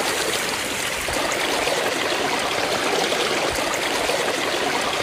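Spring water flowing steadily out from inside a tree trunk and running off like a stream.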